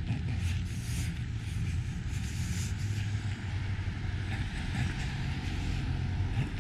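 Street ambience: a steady low rumble of car traffic.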